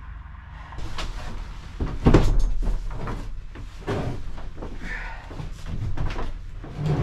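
A heavy van passenger seat being shifted and set onto a wooden pallet: several knocks and thumps with scraping between them, the loudest about two seconds in.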